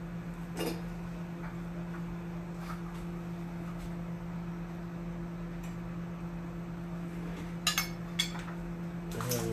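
A few light clicks and clinks of a steak knife against a plate as a microwaved sweet potato is smashed open, over a steady low hum.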